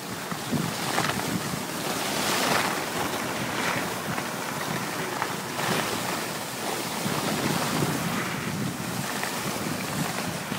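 Wind noise on the microphone of a camera moving down a ski slope: a rushing hiss that swells and fades irregularly.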